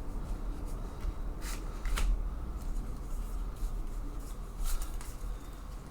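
Trading cards handled by hand, sliding and rustling against each other, with a few sharp clicks about a second and a half and two seconds in, over a low steady hum.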